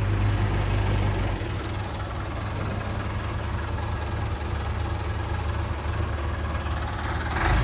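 Tractor engine idling steadily, getting a little louder near the end.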